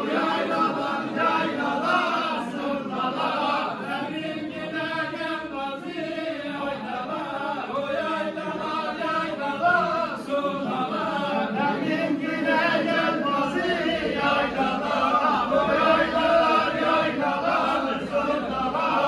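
A group of men singing a Turkish folk song (türkü) together in chorus.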